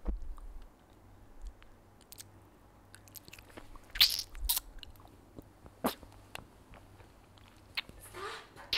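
Close-miked wet mouth sounds of a hard-candy lollipop being licked and sucked: scattered lip smacks and tongue clicks, with louder slurps about four seconds in and again near the end.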